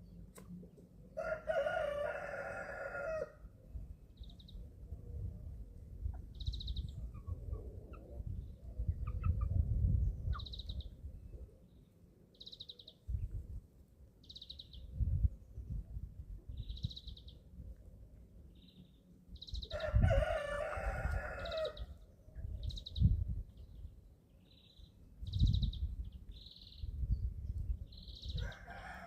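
A rooster crows, one crow about a second in, another about two-thirds through and a third starting near the end, each about two seconds long. Between the crows young chickens keep up short, high peeping chirps. There are low thumps and rumbles now and then.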